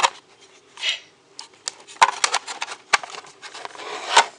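Irregular clicks and knocks from handling a perforated metal base plate and fitting it onto an Apple TV case, with a short scrape just under a second in. The sharpest knocks come about two seconds in and near the end.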